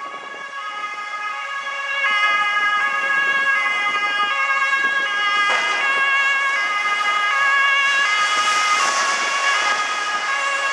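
Emergency-vehicle two-tone sirens, their pitch switching back and forth about every half second.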